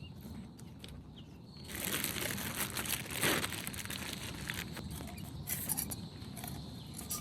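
Crinkling and rustling with scattered light clicks; it gets louder about two seconds in and swells briefly around the middle.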